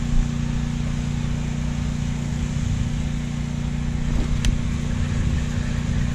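Steady low hum of running machinery, holding two constant low tones, with one sharp click about four and a half seconds in.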